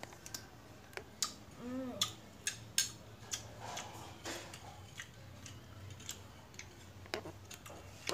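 Eating sounds from sour green tamarind being bitten and chewed, with a metal spoon scraping and clinking in a small ceramic bowl, heard as scattered sharp clicks and mouth smacks.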